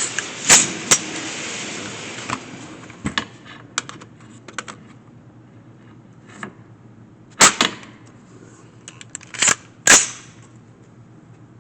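Gunshots on a shooting range: two loud shots in quick succession near the start, a scatter of fainter cracks, then three more loud shots in the second half, the last two close together.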